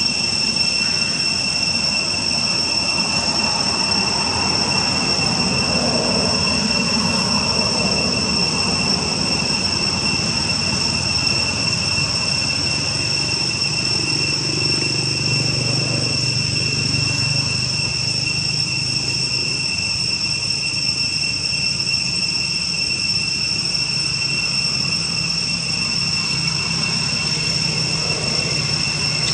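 Steady high-pitched buzzing of cicadas in the trees, unbroken throughout, with a low hum swelling up in the middle.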